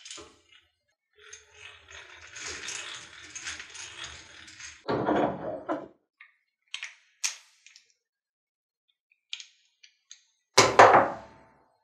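Hand drill being cranked, its gears whirring as it twists wire, followed by a heavy thunk, a few light metal clicks, and a louder clunk near the end.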